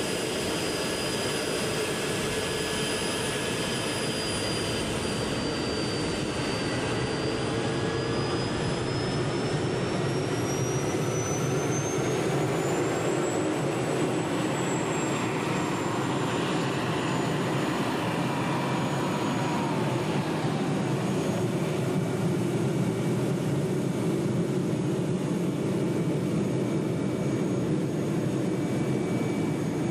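Jet aircraft engine running steadily, its high turbine whine rising in pitch about a third of the way in, then holding.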